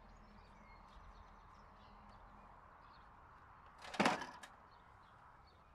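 A single sharp knock about four seconds in, with a fainter click about half a second later, over a low steady hum.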